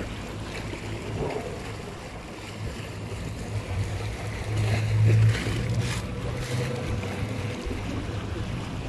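Low steady drone of a boat engine running in the harbour, swelling to its loudest about five seconds in, over wind and sea noise. There is the crinkle of a plastic bag being rummaged through.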